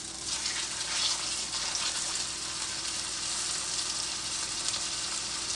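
Chicken cutlets sizzling as they sauté in a skillet of hot olive oil and butter, a steady crackling hiss that grows louder just after the start.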